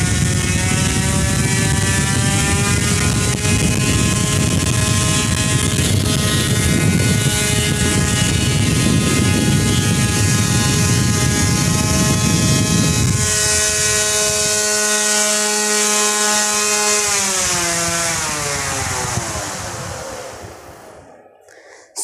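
Homemade table fan's brushless motor and blades running at high speed: a whine of many steady tones over a heavy rush of wind on the microphone, the pitch creeping up over the first several seconds as the speed is raised. About two-thirds of the way through the wind rush drops away, and the whine glides down as the fan spins down, fading out just before the end.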